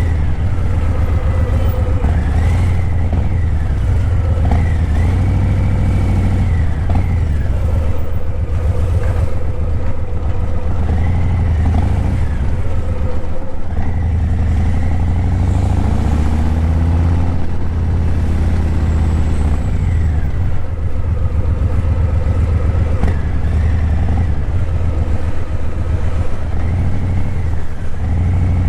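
Harley-Davidson Breakout 117's Milwaukee-Eight 117 V-twin running through a Vance & Hines Eliminator 300 slip-on exhaust while riding, a loud low rumble that steadies and briefly dips a few times.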